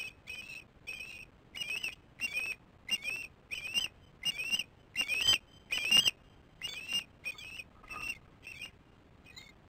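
Osprey calling: a run of about fifteen short, high whistled chirps, roughly one and a half a second, loudest about halfway through and fading near the end.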